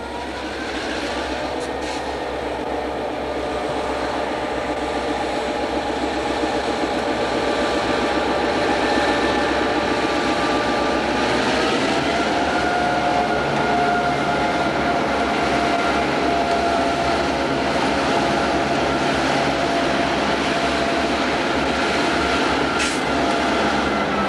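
Several EMD GP9 diesel-electric locomotives, each with a 16-cylinder two-stroke engine, working past close by. The engine sound grows louder over the first several seconds and then holds steady as a set of steady tones, whose pitch steps up slightly about halfway through. A brief sharp click comes near the end.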